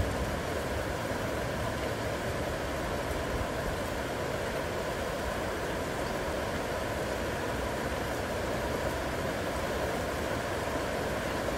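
Heavy rain falling steadily, an even hiss that does not change.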